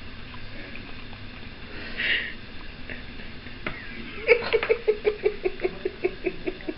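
Pet raccoon chewing and smacking on a clementine segment: a short sniff or hiss about two seconds in, then a fast, even run of wet clicking pulses, about six a second, from a little past the middle.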